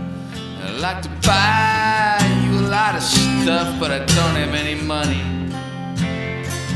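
Country-style song with acoustic guitar, a sliding, drawn-out melody line running over the accompaniment.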